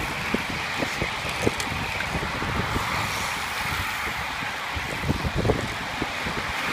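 Road-racing peloton riding past at close range: a steady whirr and hiss of many bicycle tyres and drivetrains, with wind buffeting the microphone in uneven gusts.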